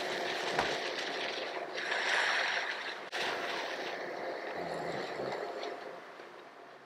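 Running water splashing steadily, typical of a shower-head hair rinse. It breaks off abruptly about three seconds in, resumes at once, and fades near the end.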